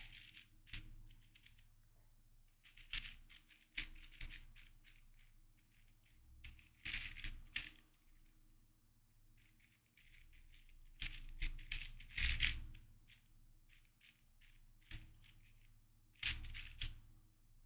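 YJ MGC magnetic 4x4 speed cube being turned during a solve: its plastic layers make quick bursts of clicking and rattling, with short pauses between bursts.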